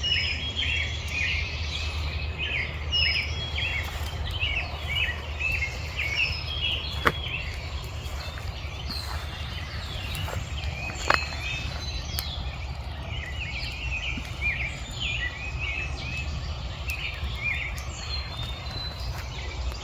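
Dawn bird chorus: many birds chirping and singing in quick, overlapping calls, thinning out for a few seconds in the middle, over a steady low rumble. Two sharp pops stand out, about a third of the way in and again just past halfway.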